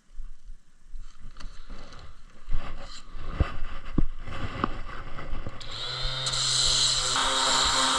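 Wood and tools knocking and clattering as they are handled. About six seconds in, a woodworking power tool starts and runs with a steady hum and hiss.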